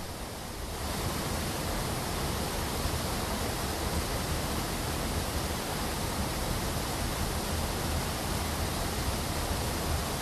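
Steady rushing noise with no rhythm or pitch, stepping up in level about a second in.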